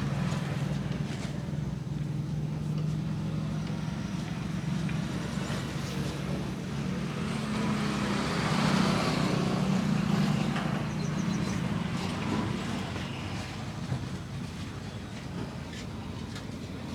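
Roadside traffic: a steady engine hum that swells as a vehicle passes about halfway through, with a single sharp click near the end.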